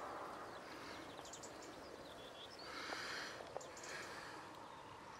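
Faint outdoor background sound with a few soft chirps and rustles.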